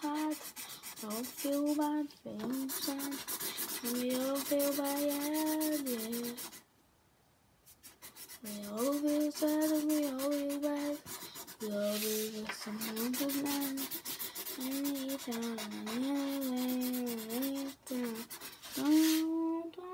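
A child humming a wordless tune over the fast, scratchy scrubbing of a felt-tip marker colouring in on paper. Both stop for a second or two about a third of the way through, then start again.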